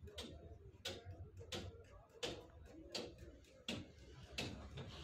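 Faint, evenly spaced metallic taps, about seven in all and roughly one every 0.7 s, each a sharp click with a short ring: a hammer tapping on metal during radiator work.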